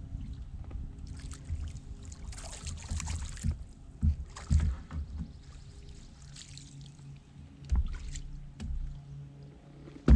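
Water splashing and dripping at the side of a small boat as a long-handled landing net is worked out of the lake, with several sharp knocks of gear against the hull and one loud bang near the end.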